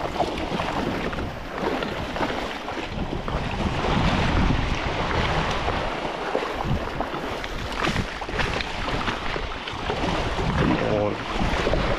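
Wind buffeting the microphone over small waves washing onto the beach, with splashing from a hooked bluefish thrashing at the surface in the shallows.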